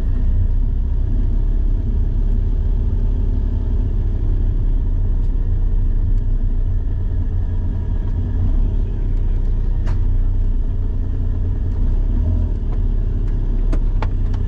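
Autozam AZ-1's mid-mounted 657 cc turbocharged three-cylinder engine running steadily at low revs, heard from inside the cabin as a deep, even rumble. A couple of sharp clicks come in the second half.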